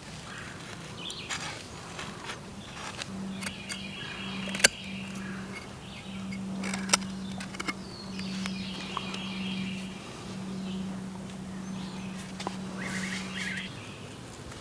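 Birds chirping in short repeated trills, with a steady low hum that starts about three seconds in and runs, with brief breaks, until near the end. A few sharp clicks stand out, the loudest about five seconds in.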